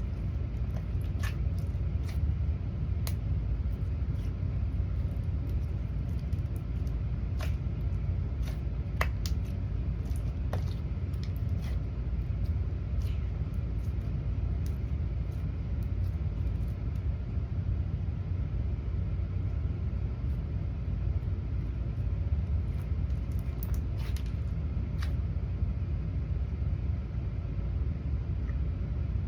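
Steady low rumble, with scattered light clicks and taps from small objects being handled.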